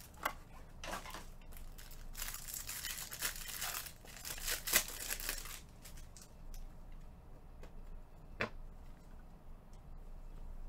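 A Bowman Chrome trading-card box and its wrapping being opened by hand: crinkling and tearing of packaging from about two to five and a half seconds in, with a few sharp taps, the loudest near the five-second mark and another about eight and a half seconds in.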